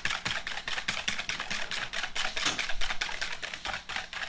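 Wire whisk beating a mayonnaise and vinegar dressing in a plastic bowl: a fast, steady run of clicks, several a second, as the tines strike the bowl.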